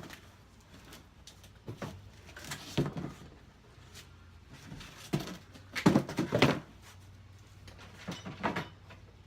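Small cardboard boxes of parts being handled and opened, with scattered rustles and knocks, the loudest cluster about six seconds in.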